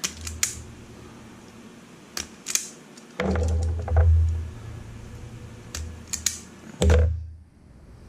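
Hand wire stripper/crimper working a crimp terminal onto a wire: a few sharp clicks and snaps of the tool's jaws, several in quick pairs, with dull low thumps of the tool and hands against the bench about three seconds in and again near seven seconds.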